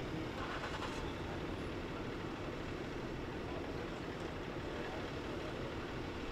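Steady low rumble of road traffic in the street.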